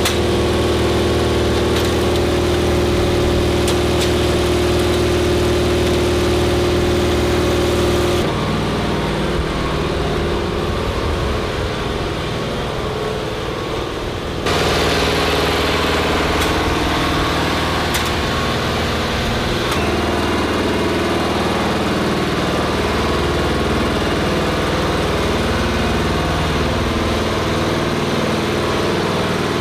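An engine running steadily at idle. The sound changes abruptly about eight seconds in and again about fourteen seconds in.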